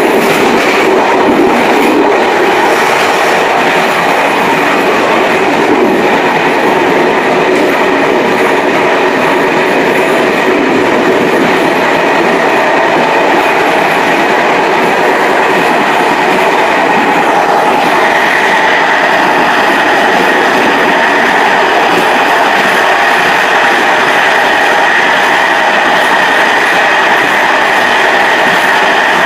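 Passenger train running on the rails, heard from inside the rear end of the last coach: a steady, loud noise of wheels on track. About two-thirds of the way through, a high steady whine joins in and holds.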